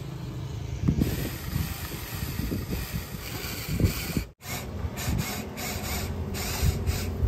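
Huina 593 remote-control toy excavator at work: its small electric motors and gearboxes whir, with scattered clunks and rattles as the bucket scoops and carries rubbish. The sound cuts out for an instant a little past halfway.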